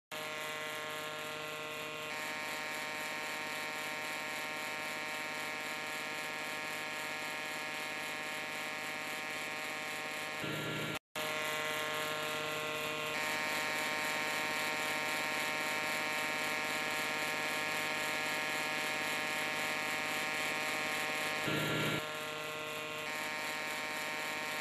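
Power tiller engine running steadily while it drives a chaff cutter, a steady drone with many overtones. About halfway through the sound drops out for a moment, and it shifts slightly a few times.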